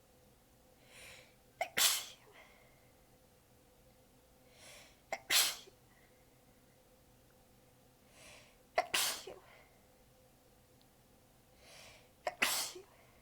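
A person sneezing four times in a fit, about every three and a half seconds, each sneeze preceded by a short breath in. The sneezes are weak and partly held back from tiredness and sore abs.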